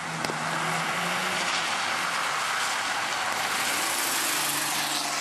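Rally car driving past at speed on a wet tarmac stage, its engine note running under a steady hiss of tyres on the wet road.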